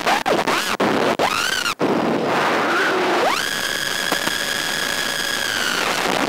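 Small drone's electric motors whining over heavy hiss. The pitch sweeps up and down twice as the throttle is punched, then holds a steady whine for about three seconds. The hiss drops out briefly several times.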